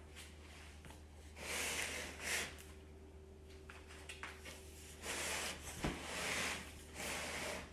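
Cardboard box and packaging being handled: several rustling scrapes, each about a second long, and a sharp click near the end.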